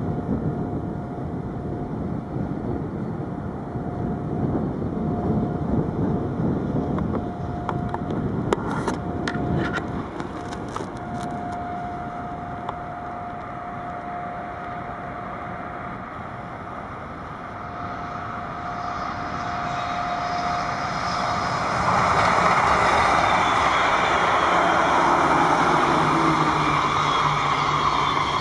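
A train approaching and passing on the yard tracks: wheel and rail noise builds from about two-thirds of the way in and stays loud to the end. Before that a low rumble with a thin steady whine, and a few sharp clicks about a third of the way in.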